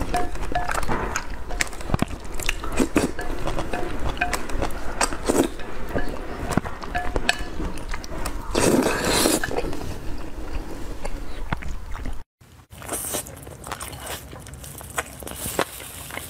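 Close-miked slurping of saucy noodles and wet chewing, with many small mouth clicks and a long slurp about nine seconds in. After a brief drop-out about twelve seconds in, quieter chewing and mouth clicks.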